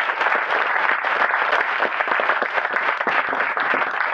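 Audience applauding steadily, the dense patter of many hands clapping.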